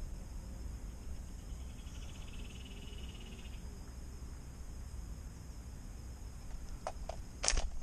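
Pond-side outdoor ambience: a steady high insect hum over a low rumble, with a small animal's rapid pulsed trill starting about a second and a half in and lasting about two seconds. A few sharp clicks and a louder knock come near the end.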